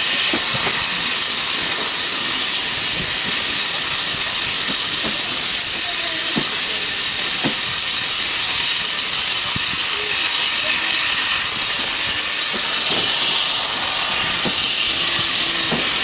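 Steam locomotive letting off a steady, loud hiss of steam.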